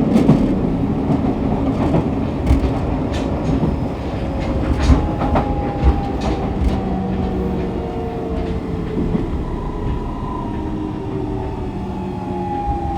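Fukuoka City Subway 2000 series train running, with a few wheel knocks over rail joints and its Hitachi GTO-VVVF inverter whining in several tones that slowly fall in pitch from about five seconds in as the train slows toward a station.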